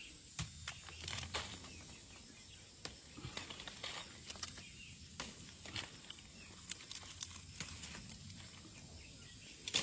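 Wild grape vines being picked over by hand: leaves rustling, with many irregular light snaps and clicks as bunches are pulled off and handled.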